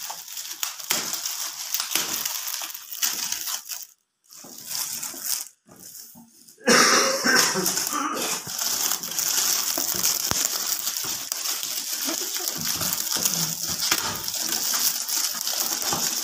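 Foil gift wrap and paper crinkling and tearing as a present is unwrapped by hand, a dense crackling rustle. It drops out for a couple of seconds about four seconds in, then comes back louder and keeps going.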